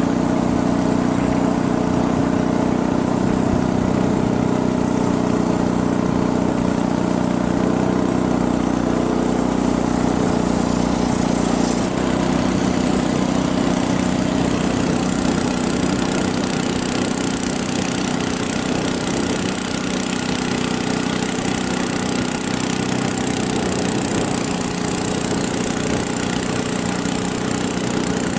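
Small engine of a narrow wooden river boat running steadily at cruising speed. A rushing hiss grows louder after about fifteen seconds.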